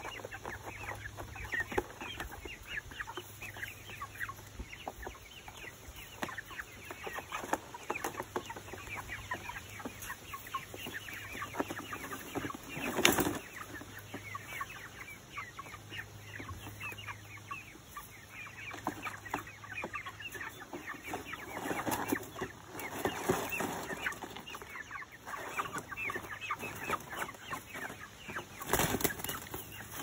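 A flock of young white meat chickens clucking and chirping continuously, with short louder noises about halfway through and again near the end.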